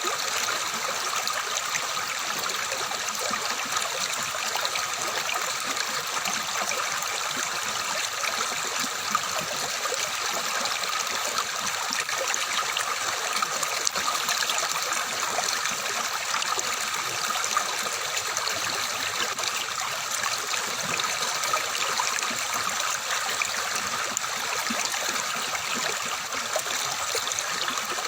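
Stream water flowing and babbling over stones, steady and unbroken.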